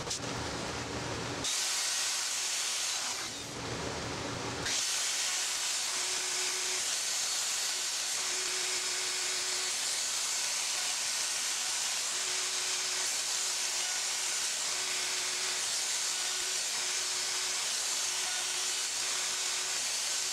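Festool OF 1400 plunge router running with its dust extraction, routing short slots into a wooden board: a steady hiss that settles after a few changes in the first five seconds.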